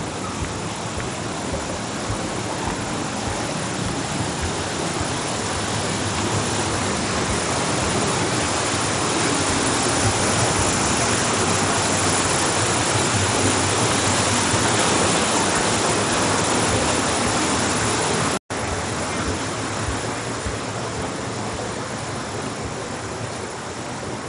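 Water rushing through a rocky gorge: a steady, even rush that grows louder toward the middle and fades again. The sound cuts out for an instant about 18 seconds in.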